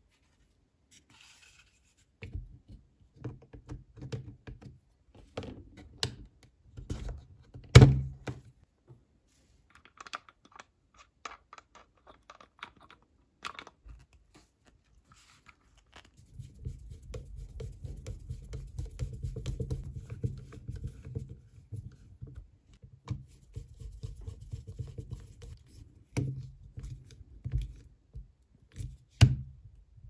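Hands handling and fitting together the plastic housing parts of a Panasonic electric screwdriver: scattered clicks, knocks and scraping. There is a sharp knock about 8 s in, a longer stretch of rubbing in the second half, and another sharp knock near the end.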